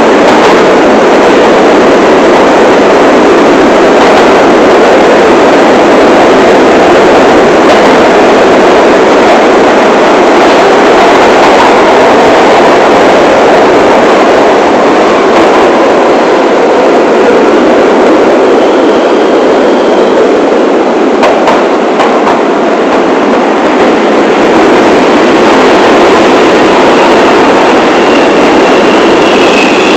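New York City subway train (1 line) running through the tunnel, heard from inside the front car: a loud, steady rumble of wheels on rail. A high-pitched wheel squeal comes in near the end.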